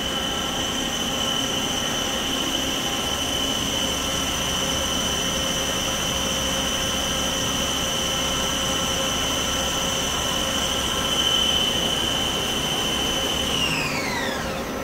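Hardinge Conquest T42 CNC turning center running with a steady high-pitched whine, typical of its spindle drive turning at speed. Near the end the whine drops sharply in pitch as the spindle slows down.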